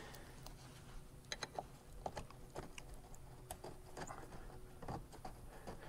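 Faint, scattered small clicks and light taps at irregular intervals from hands working the hardware while fitting a car seat.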